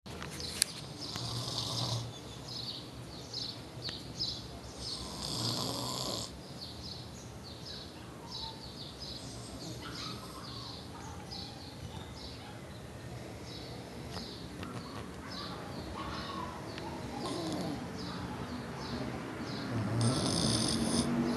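Snoring: a few long snores several seconds apart, the strongest near the start and near the end, with faint short high chirps repeating throughout.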